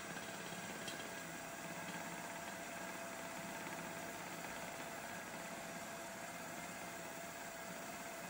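Milling machine running steadily with a pilot drill cutting through the centre of a metal casting: an even motor hum with a faint steady whine.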